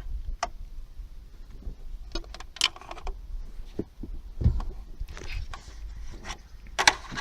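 Irregular small clicks and knocks of a Phillips screwdriver and hard plastic trim as the last screw holding a car's centre-console cup holder is undone.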